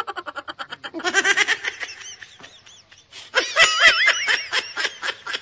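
Comedy laughter sound effect: quick, high-pitched cartoonish giggling in rapid pulses, in two runs, the second and louder one starting about three seconds in.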